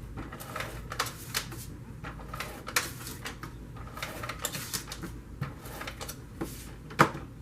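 Irregular small clicks and taps of paper pieces and craft supplies being handled on a desk while adhesive is applied to a card layer. A sharper tap comes near the end.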